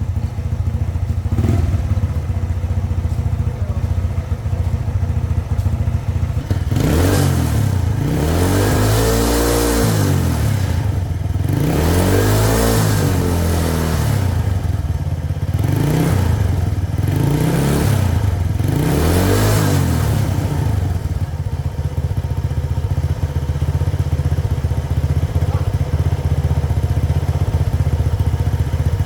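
Motorcycle engine idling steadily, then revved about five times in a row, each blip rising in pitch and dropping back to idle, before settling back to a steady idle.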